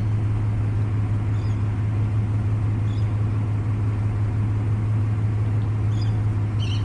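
Steady low rumble of road traffic, with a strong even hum, and a few faint short high chirps scattered through it.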